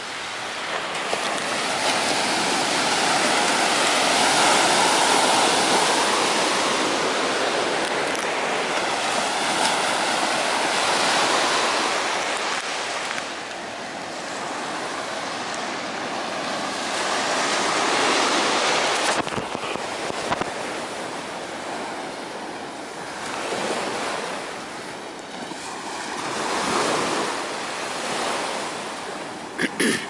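Small surf breaking on a sandy beach and washing up the shore, the rush of water swelling and easing every several seconds as each wave comes in.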